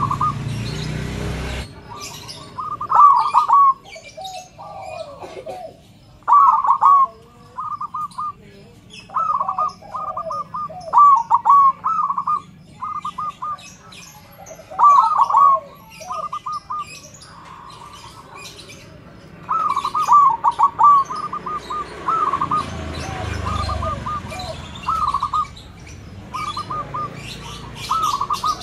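Zebra dove (perkutut) cooing: its staccato, rolling coo phrases come one after another with short pauses, about every one to two seconds.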